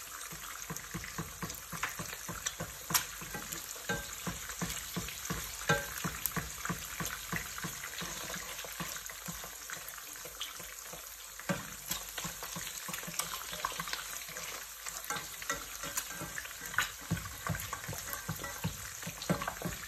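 Eggs frying in hot oil left over from frying bacon: a steady sizzle full of quick pops and crackles. A slotted spatula moves and taps in the pan among the eggs.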